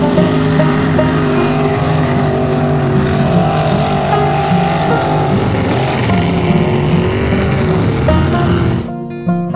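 Lifted mud truck's engine running hard at high revs, the pitch rising and falling as it churns through a mud pit, over a dense wash of spraying mud and water. The sound cuts off near the end.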